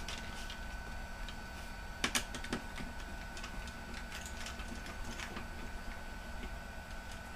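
Scattered clicks and light knocks of hands handling laptop parts during disassembly, with a cluster of louder clicks about two seconds in.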